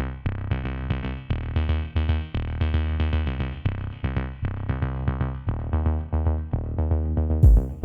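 Electronic music with a synthesizer melody and a steady drum-machine beat.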